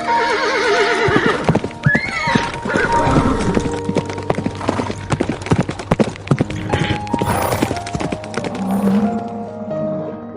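An animal call with a wavering pitch, then a second call that rises and falls, followed by a long run of sharp clicks and clatters, over background music with steady held notes.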